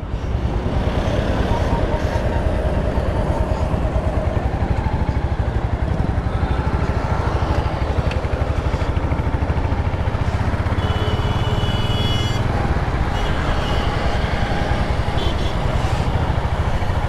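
Royal Enfield Hunter 350's single-cylinder engine running steadily while the bike is ridden, a dense low pulsing thump, with wind and road noise over it.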